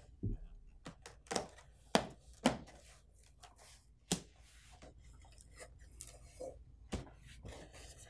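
A cardboard printer box being opened by hand: flaps pulled up and folded back, with scattered cardboard rustles and scrapes and a few sharp knocks.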